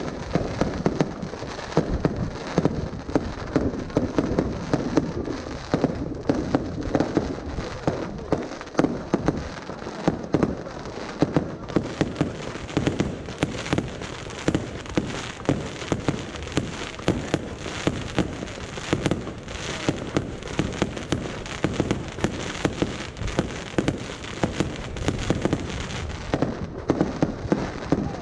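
Fireworks display: a continuous run of sharp bangs and crackling pops from aerial shells bursting, several reports a second.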